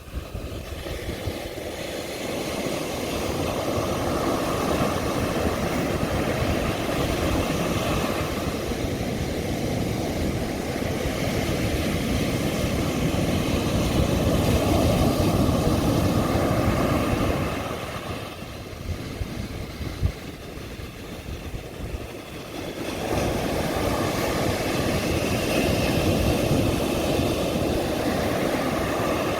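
Sea surf breaking and washing up a beach: a continuous rush of waves that swells, eases off for a few seconds about two-thirds through, then builds again.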